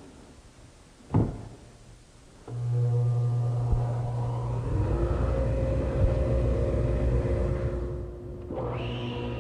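Table saw switched on: a knock about a second in, then the motor starts about two and a half seconds in and runs with a steady hum while a board is ripped to width. The sound dips briefly near the end and then the saw keeps running.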